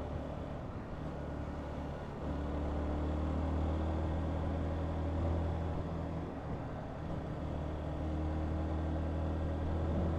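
Honda CBR125's 125 cc single-cylinder four-stroke engine running steadily while riding, picking up slightly about two seconds in, over a steady hiss of wind and road noise.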